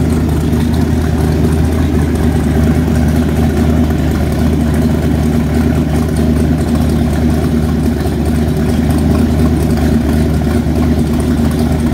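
Mercury Racing 502 big-block V8 marine engine built up to a 540 cubic inch stroker, running at a steady idle on an engine run stand, its water-cooled exhaust discharging through open exhaust pipes.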